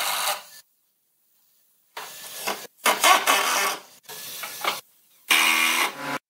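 Makita cordless impact driver driving screws into wood, running in about five short bursts of under a second each.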